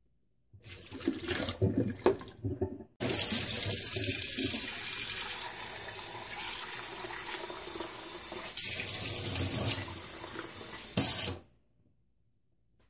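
Water swishing and splashing by hand inside a stainless steel pot, then a kitchen tap running steadily into the pot for about eight seconds, with a brief louder splash near the end before the water stops suddenly.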